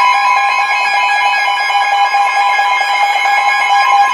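Weather radio sounding an emergency alert attention signal: a loud, steady electronic tone on two pitches at once, announcing an incoming warning.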